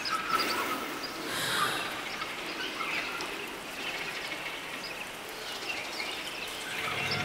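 Night-forest ambience: a soft, even hiss with scattered short bird chirps.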